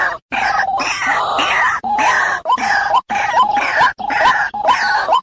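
White-breasted waterhen (ruak-ruak) calling: harsh, repeated croaking notes, about two a second, each ending in a short upward hook, over a rough, noisy chorus of calls.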